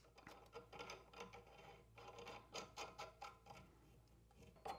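Faint, irregular clicks and rubbing of threaded metal pipe fittings being turned by hand, with one sharper click near the end.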